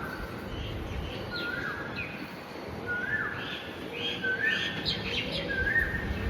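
Birds chirping, one repeating a short whistled note about every second and a half, with quicker higher chirps in between.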